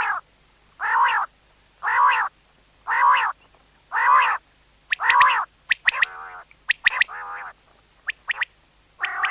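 Common quail calling: six loud, drawn-out notes about one a second, then a couple of quieter notes and some short, sharp notes near the end.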